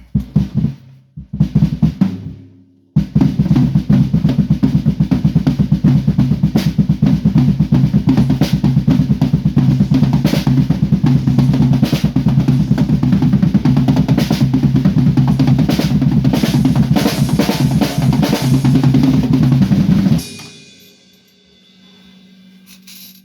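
Drum kit being played for a sound check: a few separate hits, then a long, very fast, loud drum roll that stops abruptly about 20 seconds in and rings out.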